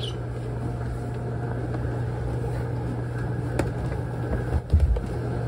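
Steady low hum of a yacht's onboard machinery, with a sharp click about three and a half seconds in and a few low thumps near the end.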